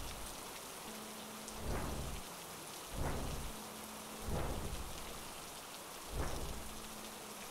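A steady hiss with soft low rumbles that swell and fade four times, a second or two apart.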